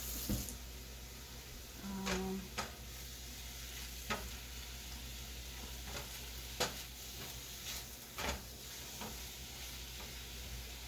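Food sizzling faintly in a frying pan on the stove, with scattered clicks and knocks of cookware and utensils being handled. A brief low tone comes about two seconds in.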